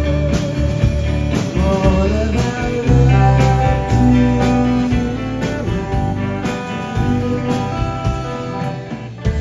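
Live rock band playing an instrumental passage: electric guitars with sustained and bent notes over bass and drums with regular cymbal hits, and a hard accented chord near the end that is left ringing.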